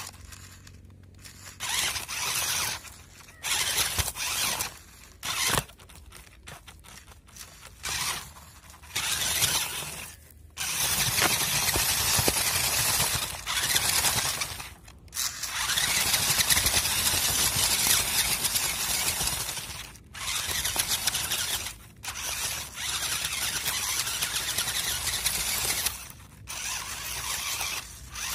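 An off-road RC truck's motor and gear drive whining in repeated bursts of throttle, some brief and some several seconds long, with pauses between. Heard from a camera mounted on the truck as it crawls over grass and dirt.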